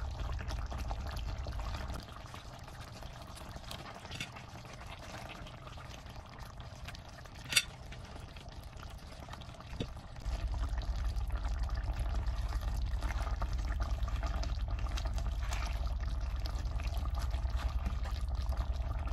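Coconut-milk sauce simmering and bubbling in a wok. A low hum under it drops out about two seconds in and comes back about ten seconds in, and there is one sharp click in the middle.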